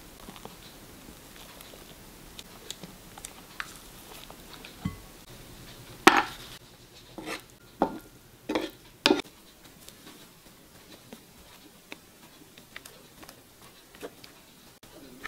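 A spatula clicking and scraping lightly against a glass mixing bowl while meringue is folded, then a run of about five louder scrapes as a wooden spatula spreads melting butter around a frying pan, followed by a few faint ticks.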